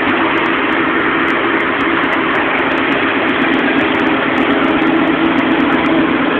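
Sports car engine idling steadily while it warms up, with no revving.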